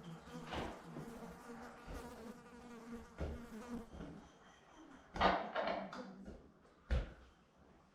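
An insect buzzing, its pitch wavering, with two brief louder clatters about five and seven seconds in.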